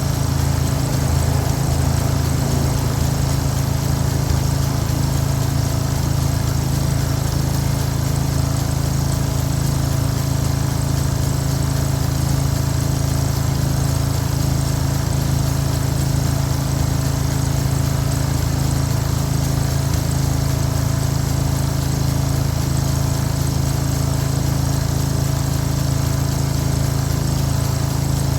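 Small engine of a Ryan Greensaire walk-behind core aerator running steadily at an even speed.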